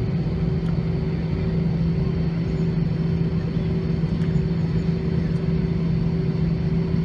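Steady cabin hum inside an Airbus A320 with its engines idling while the aircraft holds for departure: an even rumble with a constant low drone tone.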